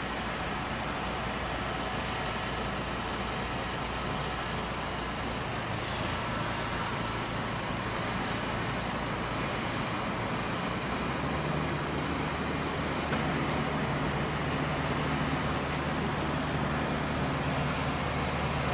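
A heavy vehicle engine running steadily amid traffic noise. Its low drone shifts pitch about five seconds in and again about eleven seconds in, and grows slightly louder in the second half.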